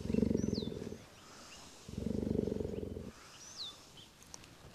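Cheetah purring in rumbling spells of about a second with pauses between, two strong ones and a faint one near the end, while its coat is being brushed; the sign of a content animal enjoying the grooming.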